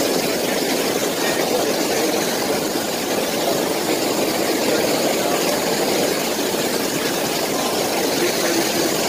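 Massage-pool water jets churning the water: a steady, even rushing noise.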